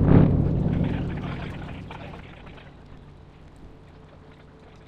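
The last of a big fireworks barrage dying away: dense crackling and booming that fades out over the first two seconds. A faint steady background hum remains.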